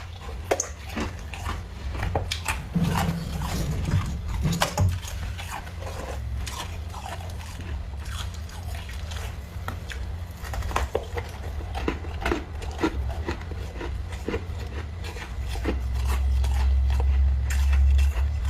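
Thick, crunchy freezer frost being scraped, with irregular crisp crackles and crunches over a low hum that grows louder near the end.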